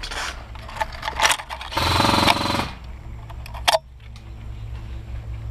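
Airsoft gun firing a short full-auto burst lasting about a second, with a few single sharp clicks before and after it.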